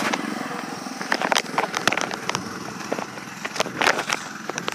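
Handheld recording moving outdoors: irregular small knocks and rustles over a steady rush of background noise.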